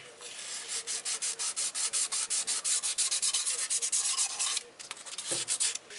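Fine sandpaper wetted with WD-40 being rubbed by hand across a Ford Mondeo's cylinder block deck, scrubbing off rubberised remnants of the old head gasket. Quick, rhythmic back-and-forth strokes, about six a second, with a short pause near the end before a few more strokes.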